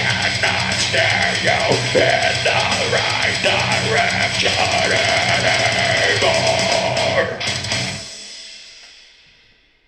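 Heavy metal backing music with drums and guitar. It cuts off about eight seconds in, and its tail dies away.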